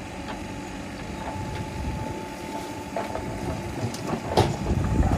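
JCB backhoe loader working: its engine runs steadily with a thin whine over the rumble. Several metallic clanks and knocks come in the second half, the loudest about four and a half seconds in.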